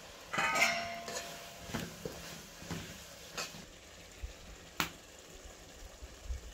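A metal spatula clanging and knocking against an aluminium cooking pot: one ringing clang about half a second in, then a few lighter, sharp knocks spread over the next few seconds.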